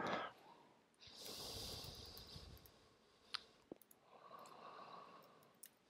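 Faint breathing close to the microphone, two soft breaths in and out, with a couple of light computer-keyboard clicks between them, about three and a half seconds in.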